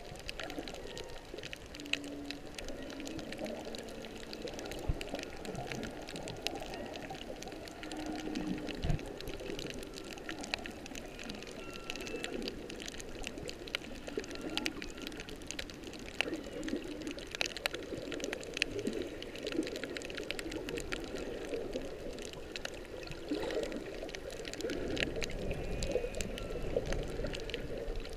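Humpback whale song heard underwater: a few short low tonal calls and some higher whistle-like notes over a steady wash of water noise with many scattered clicks.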